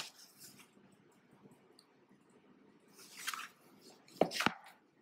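Printed paper pages rustling as they are handled, about three seconds in, then two quick knocks just after, the loudest sounds.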